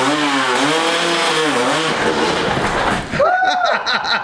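Motorcycle engine revving, its pitch swooping down and back up about once a second. It cuts off about three seconds in, and a different, higher wavering pitched sound follows.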